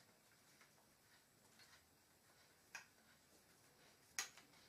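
Near silence, broken twice by a faint, short wooden click, about three and four seconds in, as a wooden leg rod is screwed into a wooden joint piece of a baby play gym.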